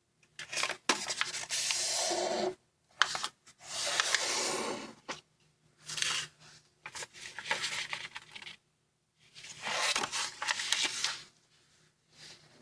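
Origami paper handled and creased by hand: rustling and rubbing as it is folded, pressed flat and opened back out, in several bursts with short pauses between.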